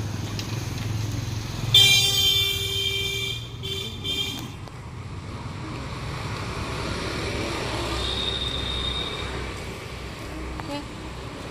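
Vehicle horn honking in street traffic: one long blast just under two seconds in, then two short toots, over a steady hum of passing traffic.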